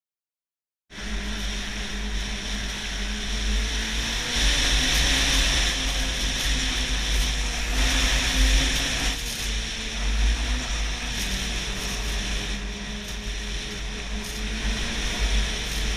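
Snowmobile engine running at speed on the move, its pitch rising and falling a little with the throttle, with heavy wind rumble on the microphone. It starts abruptly about a second in.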